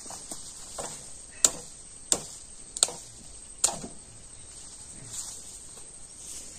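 Machete chopping into cassava plants: a couple of light knocks, then four sharp chops about three-quarters of a second apart.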